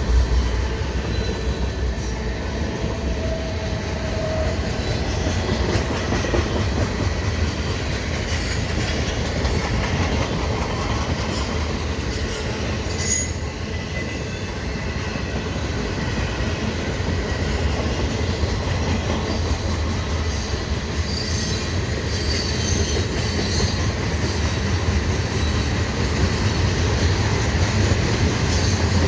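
Freight cars of a CN mixed freight train rolling past at speed: steady wheel-on-rail rumble and rattle, with a faint steady high tone above it.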